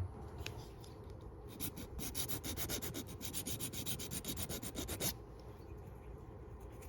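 A small thumb bar for a Leatherman Wave being filed down by hand to fit: quick, even rasping strokes, several a second, from about a second and a half in until about five seconds in, with fainter scraping before and after.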